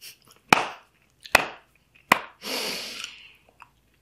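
Three sharp clicks about a second apart, then a short rustle, as a chocolate is handled and unwrapped before it goes into the mouth.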